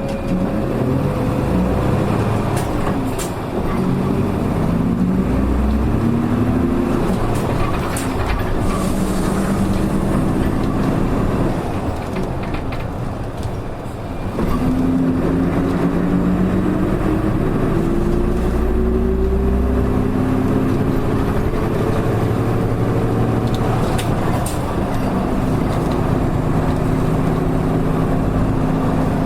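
Nissan Diesel Space Runner RA city bus accelerating from a stop: a diesel engine and drivetrain whine climbing in pitch, broken off and starting lower again at each gear change, about four times, then holding steadier near the end. The bus is billed as an abnormal-noise vehicle.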